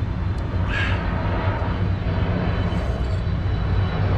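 Steady low background rumble, with one brief slurp as coffee is sipped from an enamel mug about a second in.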